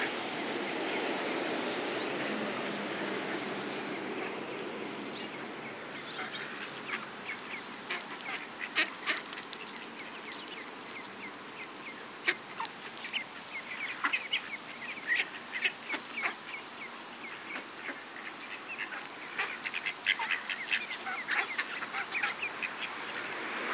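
A flock of mallard ducks quacking in many short, scattered calls, which grow frequent from about six seconds in.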